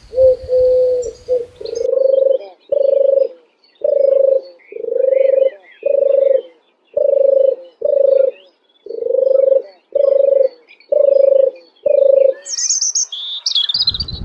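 Dove cooing: a steady series of about a dozen short, low coos, roughly one a second, with faint chirps of small birds behind them. Near the end, high-pitched chirping briefly takes over.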